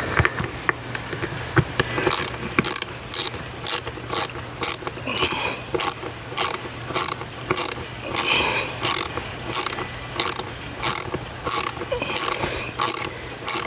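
Hand socket ratchet tightening a screw: a few light clicks as the fastener is set, then from about two seconds in a steady run of ratcheting strokes, about two a second, each a quick burst of pawl clicks.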